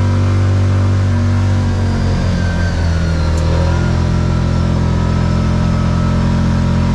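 ATV engine running steadily under way. Its note wavers and shifts briefly a couple of seconds in, then settles again.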